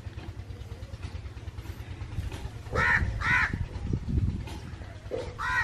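Newborn goat kids bleating: two short calls about three seconds in and another near the end, over a steady low hum.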